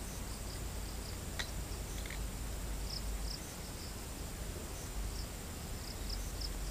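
Outdoor insects chirping in short, high, irregular chirps over a steady low background rumble, with a single faint click about a second and a half in.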